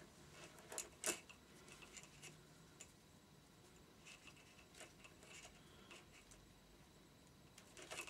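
Faint, scattered clicks and light rubbing as a motorcycle cam chain and the string it hangs from are handled and fed into the engine, with the loudest click about a second in.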